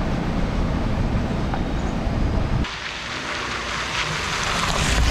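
Steady low road rumble of a vehicle driving. A little over halfway through it cuts abruptly to a brighter, hissy noise with less rumble.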